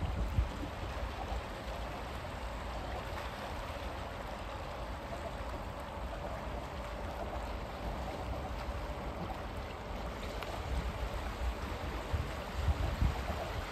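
Small sea waves lapping and washing steadily against a rocky shore, with low rumbles near the start and again near the end.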